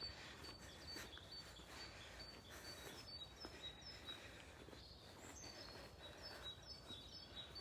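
Faint birdsong: a small bird repeating short, high chirps about every half second.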